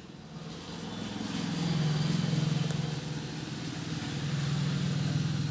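A motor vehicle's engine running past, growing louder over the first two seconds, holding, then easing off near the end.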